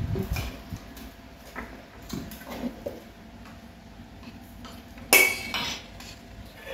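Chopsticks and spoons clinking and tapping against ceramic bowls and plates while people eat, with scattered light clicks and one sharper, ringing clink about five seconds in.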